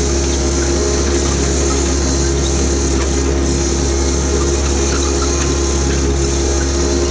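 Diesel engine of a Jacobsen HR-5111 rotary mower running steadily while the machine is driven, a constant loud drone with a deep rumble under it.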